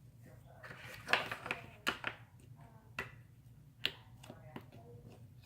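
Sticky slime being squished and pulled in the hands, giving a handful of sharp, irregular clicking pops.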